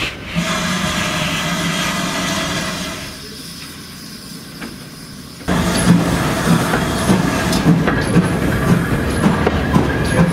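A steady hum for about three seconds, then, from aboard a moving steam locomotive, a regular rhythm of exhaust beats and wheels running over the rails, about two to three beats a second.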